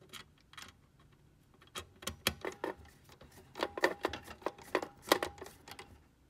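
Sharp, irregular metal clicks and taps, bunched in the second half, as a long-reach quarter-inch nut driver turns a collared screw into the focus motor mounting of a Kodak Carousel 850H slide projector.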